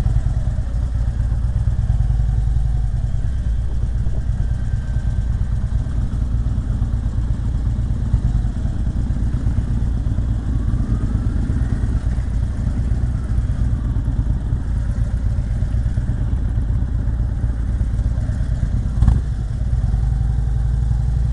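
Motorcycle engine running with a steady low rumble, with faint rising and falling engine tones now and then. A single sharp knock near the end.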